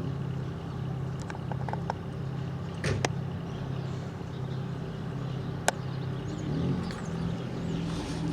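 Caterpillar 301.4 mini excavator's small diesel engine running steadily at raised revs, with a couple of sharp metallic clanks.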